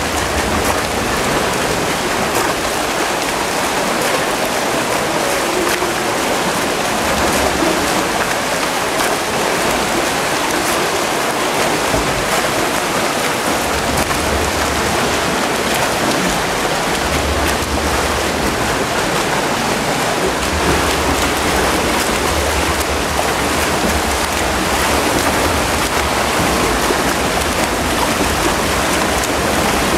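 Water splashing and churning steadily as front-crawl swimmers' arms and kicks break the surface of a pool lane, close by.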